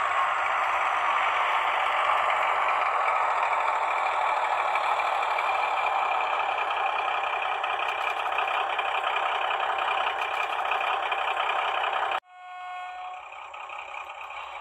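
H0 model train running past at close range: the DR class 106 diesel shunter and express coaches, with a steady running rattle from the wheels on the track and the motor. It cuts off suddenly about twelve seconds in and goes on more quietly.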